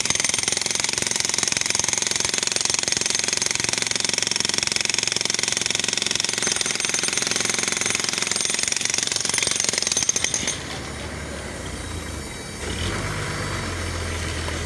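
Jackhammer hammering rapidly and continuously, stopping about ten and a half seconds in. A lower, steady motor-like hum keeps going after it stops.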